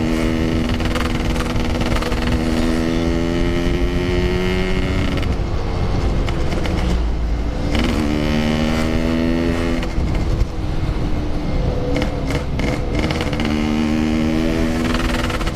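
Motorcycle engine accelerating hard through the gears: its pitch climbs, breaks off at each gear change and climbs again, three pulls in all, over steady wind rush.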